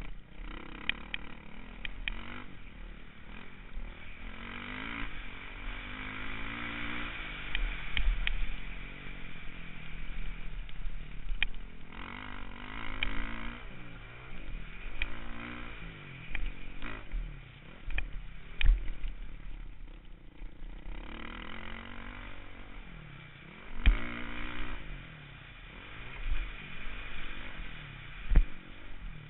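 Dirt bike engine revving up and down as it is ridden around a motocross track, heard from a camera mounted on the bike, with wind noise and several sharp knocks as the bike goes over bumps and jumps.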